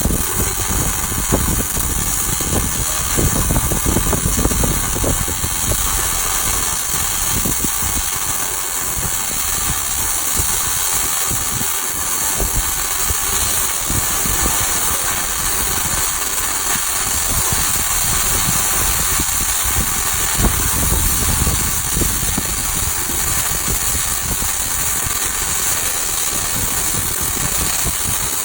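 Electric arc welding: a continuous crackling hiss as a weld bead is run, with no break.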